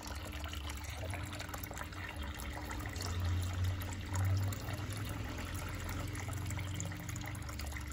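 Garden fountain's spout pouring a steady stream of water into its basin, a continuous trickle and splash.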